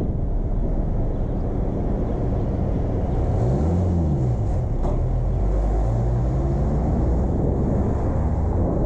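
Car driving through city streets: steady low road and wind rumble. About three to four seconds in, an engine tone rises and then falls.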